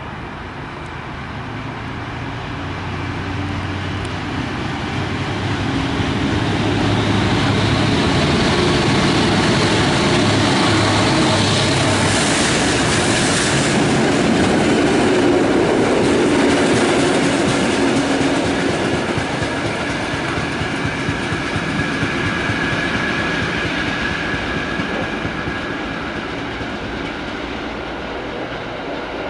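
A train passing through a station: it grows louder over the first several seconds, is loudest in the middle, then eases off as it draws away.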